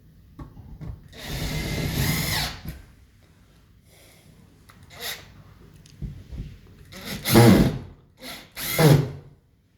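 Power drill-driver driving screws into a wall: one run of about a second and a half starting about a second in, its motor note rising toward the end, then two shorter runs near the end.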